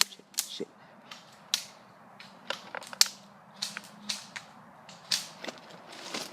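Airsoft guns firing single shots: irregular, sharp pops about ten times, spaced unevenly with quiet gaps between.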